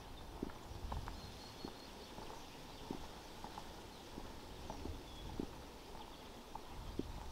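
Footsteps on a path, an uneven tread of soft knocks about one or two a second, with faint bird chirps.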